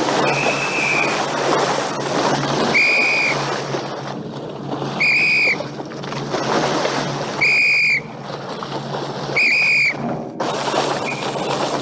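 A drill sergeant's metal signal whistle is blown in five short, high-pitched blasts about two seconds apart. The blasts are drill commands telling recruits to hit the ground or to get up and advance. A steady rush of noise runs underneath.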